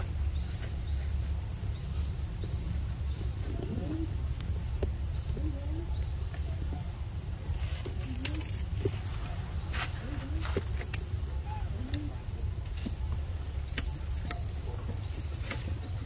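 Steady high-pitched insect chorus, chirring on without break. Underneath it runs a low rumble, with faint short low calls about once a second and a few sharp clicks near the middle.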